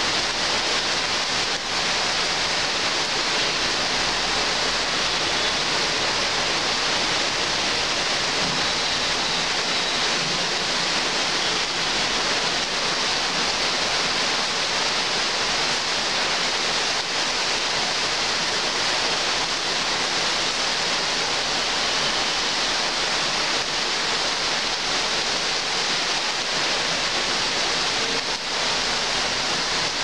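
Rain pouring steadily onto trees and leaves, an even, unbroken hiss.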